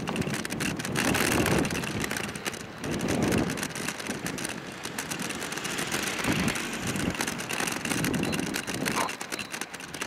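Kick bike rolling over a brick-paved path: a steady rumbling rattle from the wheels and frame that swells every two to three seconds.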